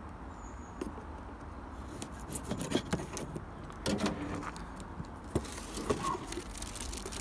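Cardboard box being opened: a blade scraping through the packing tape, then the box flaps scuffing and clicking as the lid is lifted, giving a run of scattered short scrapes and clicks.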